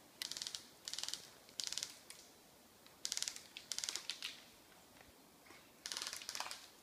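Footsteps crunching and rustling through dry forest undergrowth at walking pace, a step about every 0.7 s, pausing briefly in the middle.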